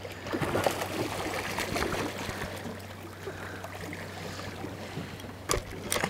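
Water splashing and sloshing against a boat's side around a yellowtail kingfish held at the surface, busier in the first couple of seconds. Two sharp knocks come near the end, over a steady low hum.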